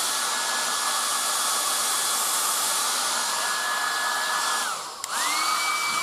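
1980s Black & Decker Stowaway 1200 travel hair dryer running: a steady rush of air with a motor whine. About five seconds in the whine drops away as the dryer is switched between settings, then it spins back up and the whine rises and settles at a higher pitch.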